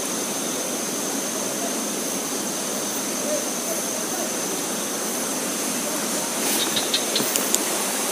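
Steady rushing of a swollen, fast-flowing river in spate, with a thin steady high tone above it and a few light ticks near the end.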